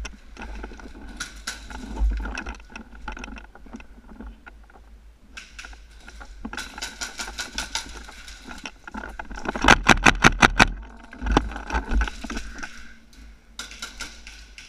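Airsoft gunfire: scattered rapid shots, then a loud burst of about eight sharp shots in roughly a second, followed by a few more single shots.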